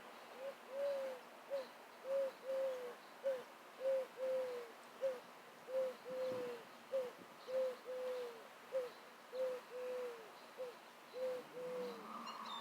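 A bird cooing in low, hooting notes: a three-note phrase, a short note followed by two longer ones that slur downward at the end, repeated about six times at an even pace.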